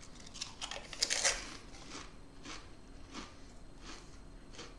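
Crunching of Pringles potato crisps being bitten into: a quick burst of crisp cracks, loudest about a second in, then a few fainter single crunches as they are chewed.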